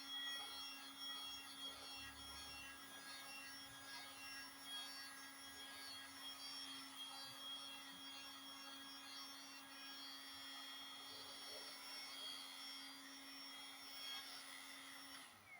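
Heat gun running steadily with a constant hum and whine from its blower. It is switched off near the end, the whine dropping briefly as it winds down.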